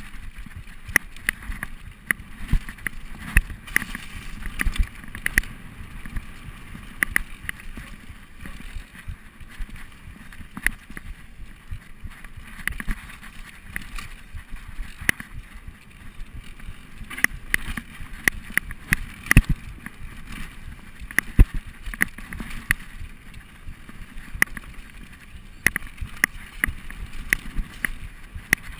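Mountain bike ridden fast down a rough dirt singletrack: irregular sharp clicks and knocks as the bike rattles over bumps, over a steady rush of tyre and riding noise.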